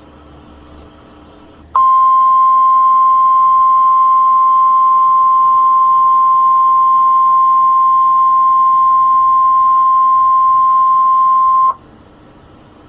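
NOAA Weather Radio 1050 Hz warning alarm tone: a single steady, loud tone that starts about two seconds in, lasts about ten seconds, and cuts off sharply. It signals that an urgent weather warning message follows. Faint receiver hiss lies before and after it.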